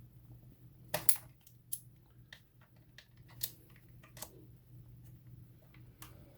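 Scattered light clicks and taps of a screwdriver on the plastic housing of a tire inflator being taken apart, the loudest about a second in, over a steady low hum.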